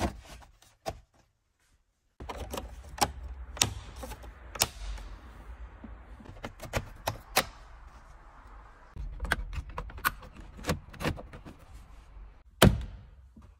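Hard plastic interior trim of a Volkswagen Passat's centre console clicking and knocking as the switch block and console panels are pressed and snapped into place. The clicks are sharp and irregular, with a brief pause a second or two in and the loudest knock near the end.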